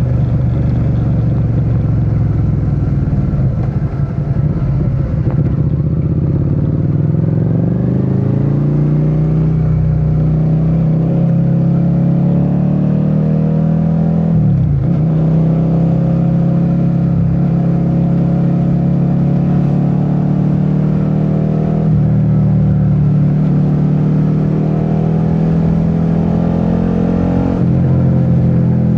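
Suzuki SV650's V-twin engine under way: it rises in pitch for several seconds as the bike accelerates, then holds a steady cruise, with a brief drop and recovery about halfway through.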